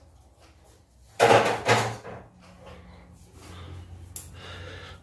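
A single sharp knock about a second in, a hard object striking or set down on a surface, followed by a faint steady hum.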